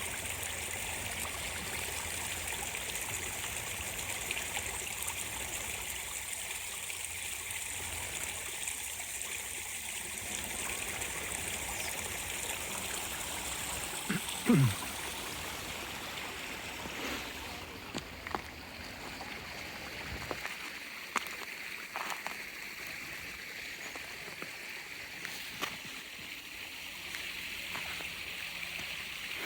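Stream water running and splashing steadily, the rush thinning out a little past halfway. About halfway through, a brief loud sound slides down in pitch, and scattered sharp clicks follow in the second half.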